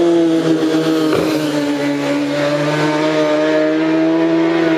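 A racing motorcycle engine held at steady high revs, a loud continuous note whose pitch sags slightly in the first couple of seconds and then holds level.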